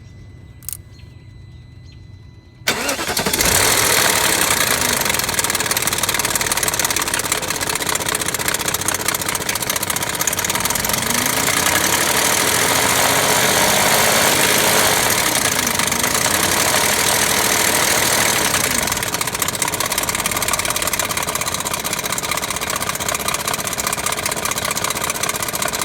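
BMW 740i 4.4-litre V8 engine starting about two and a half seconds in, then running steadily with the timing chain rattle.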